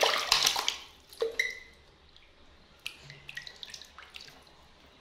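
Water splashing and dripping from a wet washcloth while a face is washed over a basin: a busy spell of splashes in the first second or so, then scattered drips.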